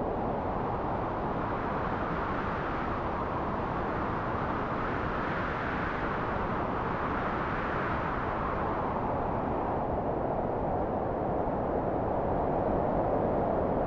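Wind blowing in a steady rush, swelling brighter in the middle and easing back down toward the end.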